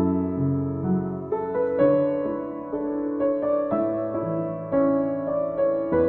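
Indonesian-made Yamaha JX113T upright piano, 113 cm tall, played in slow chords that are each left to ring, with a low bass note struck at the start. The front panel is off, so the hammers and strings are exposed. It is being tried out just after its strings were tuned.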